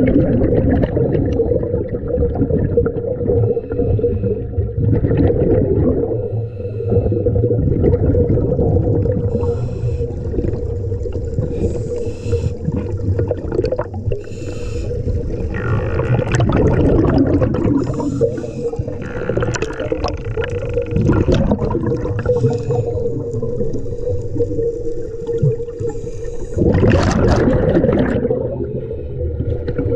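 Underwater scuba sound: a diver's regulator breathing, with hissing inhalations every few seconds and bubbling exhaust bubbles between them. A steady hum runs underneath.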